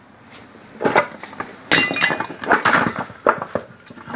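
Metal parts and tools clinking and knocking against a transmission case during disassembly: one knock about a second in, then a quick run of clanks and scrapes, some with a short metallic ring.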